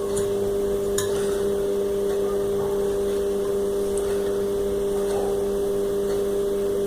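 A steady, even-pitched electrical machine hum, with a faint click or two near the start.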